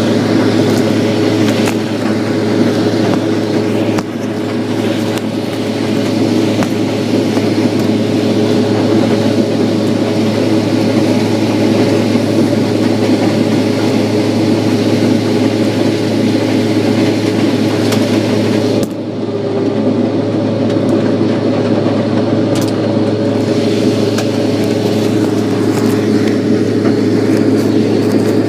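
Harvest machinery engine running steadily under load with a constant deep hum. About 19 seconds in, the high hiss suddenly drops away and the level dips briefly, then the drone carries on unchanged.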